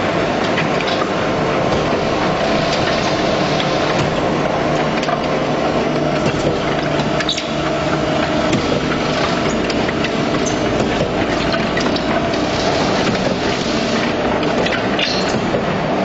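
Truck-mounted concrete mixer pump running steadily, a constant machine hum with a continuous light rattle and clatter.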